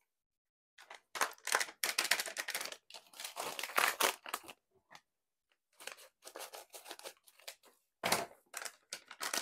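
Scissors snipping open small paper mix packets, with paper rustling and crinkling as the powder is shaken out, in a string of short scratchy bursts with a brief pause around the middle.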